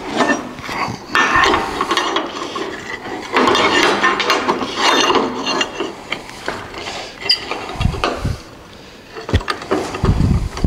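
Hand scraping and rubbing on a steel truck frame rail in irregular bursts of a second or more, then a few dull thumps near the end.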